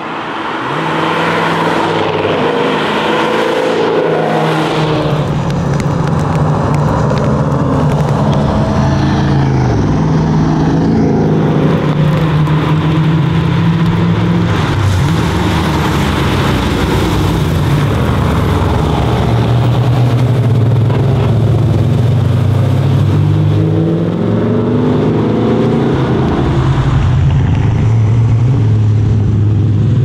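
Engines of classic cars accelerating through bends and passing by one after another, each note climbing as it revs up, most clearly about a third of the way in and again near the end.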